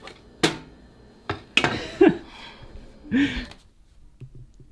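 A wooden picture frame knocking and clattering against a wall as it is handled and lifted down, with several sharp knocks, the loudest around two seconds in. A couple of short wordless vocal sounds come in among the knocks.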